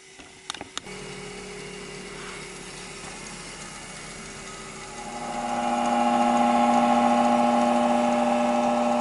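Hercules variable-speed bench grinder with a CBN wheel switched on with a click, its motor then running with a steady hum that grows clearly louder about five seconds in. The hum is typical of the worn, slightly out-of-balance aluminum oxide wheel on the other side, which the owner takes for the source of the humming, while the CBN wheel is quiet.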